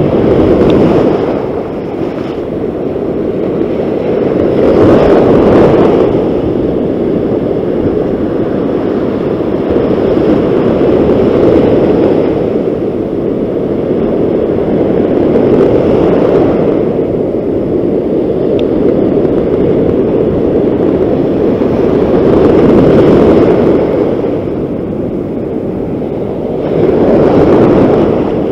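Loud, steady rush of surf and wind, swelling every few seconds as waves break on the beach.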